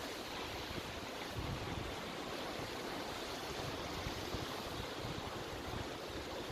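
Steady outdoor noise: wind buffeting the microphone over a constant wash like running or lapping water.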